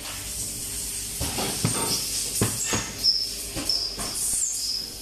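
A rubber centrifugal-casting mould and cast lead-tin fittings being handled: a series of separate knocks and clinks, with short high-pitched squeaks from about two seconds in.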